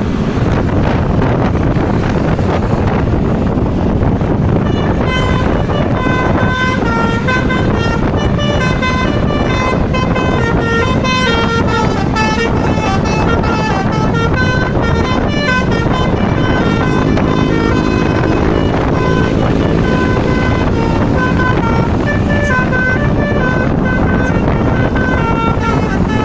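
Bus 'telolet' musical air horn (Basuri V3) playing a long, winding run of quick stepped notes over steady wind and road noise. The horn starts about five seconds in.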